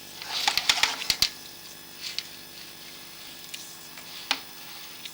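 Sharp clicks and knocks as a CCTV drain camera is pushed into a sewer pipe: a quick cluster in the first second or so, then a few single clicks spaced out after, over a faint steady hum.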